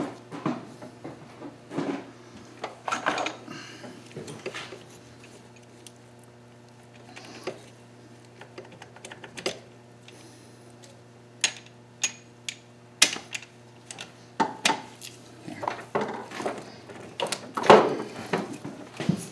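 Small metal engine parts and tools clinking and clicking as they are handled, in irregular knocks, busiest near the end, over a steady low hum.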